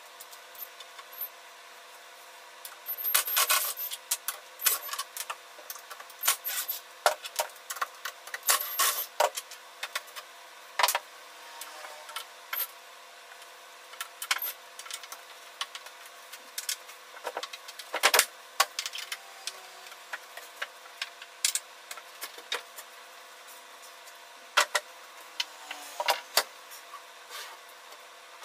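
Irregular clicks, knocks and scrapes of wood and metal as a wooden cabinet is unscrewed and its panels are handled and set down, with loose screws clinking.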